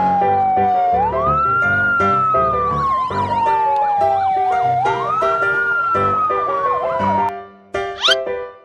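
A siren wailing, twice rising quickly and falling slowly, over background music; it stops about seven seconds in and a short rising whistle follows.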